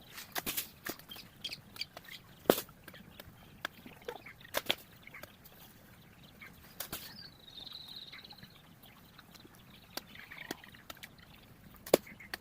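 Sharp, irregular knocks of a blade chopping into coconut-tree wood, spaced a second or more apart, with a short high whistle, like a bird call, about seven seconds in.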